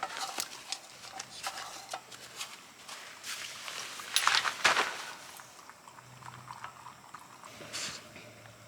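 A dog lapping water from a bowl: irregular wet slurps and clicks, with a louder, denser run about halfway through.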